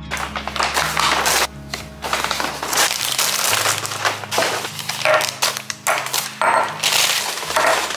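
Paper grocery bag rustling and crinkling in repeated bursts as items are taken out of it.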